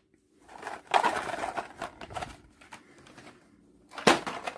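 Blister-carded diecast toy cars being handled and set down on a tabletop: plastic blisters crinkling and card backs tapping, with a louder clatter near the end.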